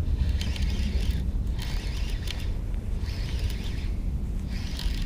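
Fishing reel cranked slowly on a retrieve, its gears whirring in a repeating rasp about once every one and a half seconds, over a steady low rumble.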